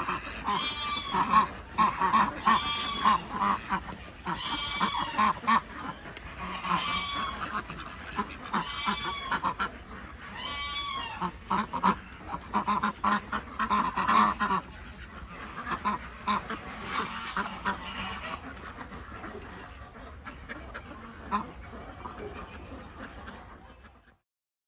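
A flock of Swedish ducks quacking, loud runs of quacks about every two seconds, then fewer and quieter calls over the last ten seconds or so. The sound cuts off suddenly near the end.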